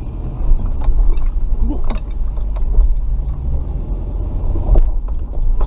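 Off-road vehicle engine running low at crawling speed over rocks, a steady low rumble, with scattered sharp knocks and clatters from the vehicle working over the terrain.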